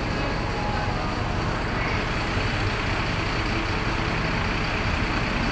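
A bus's diesel engine idling steadily close by, a constant low hum.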